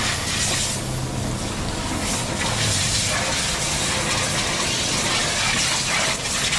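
Water spraying hard from a car-wash hose onto a car: a steady rushing hiss that swells at moments.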